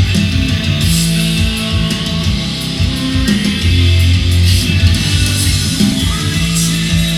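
Rock music with guitar and a steady bass line, played back from a vinyl record over a hi-fi system.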